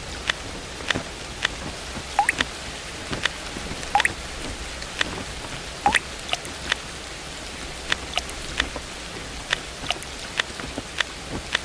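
Steady rain hiss with single drops plinking irregularly, a few of them landing in water with a short rising 'plip'.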